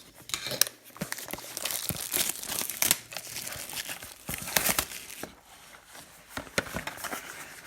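Plastic wrapper on a box of football trading cards crinkling and tearing as it is opened, with irregular crackles and rustles.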